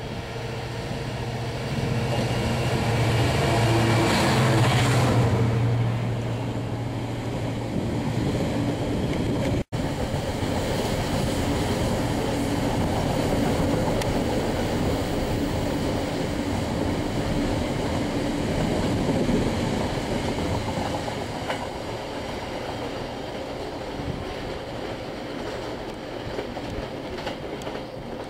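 Class 66 diesel locomotive's two-stroke V12 passing, a steady engine drone that is loudest about four to five seconds in. It is followed by the long, even rumble and rattle of freight wagons rolling by on the rails, fading slowly near the end. There is a split-second break in the sound about ten seconds in.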